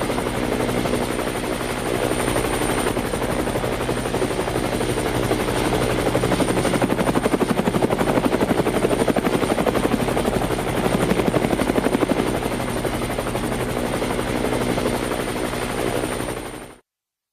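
Helicopter running, its rotor blades beating in a fast, even pulse over the steady drone of the engine. The sound fades out quickly near the end.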